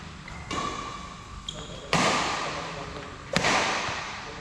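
Badminton rackets striking a shuttlecock in a doubles rally: three sharp hits about a second and a half apart, each echoing through the hall.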